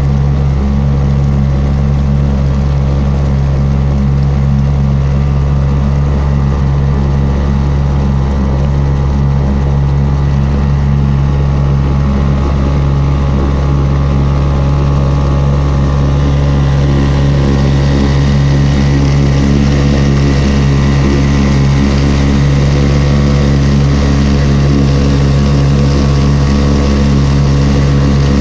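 Sharmax 4 hp petrol outboard motor running steadily under way, pushing an inflatable boat, its engine note holding an even pitch. A rushing hiss of water along the hull grows louder about halfway through.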